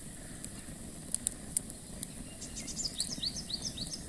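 Open wood fire crackling, with a few sharp pops a little over a second in. A bird calls in a quick run of short chirps near the end.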